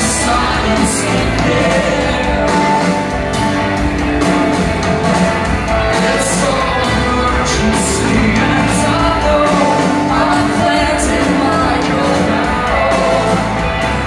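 Rock band playing live in a large hall: electric guitars, bass and drums with cymbal crashes about every second, and a lead vocal over the top.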